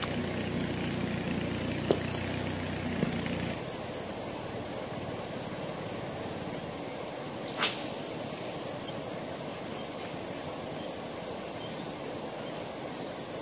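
Insects trilling steadily at a high pitch in riverside vegetation, with a low hum that stops about three and a half seconds in. A single sharp click stands out about seven and a half seconds in.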